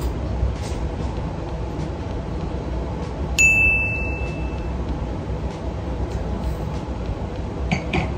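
A single bright, bell-like ding about three and a half seconds in, ringing out for about a second over a steady low background rumble.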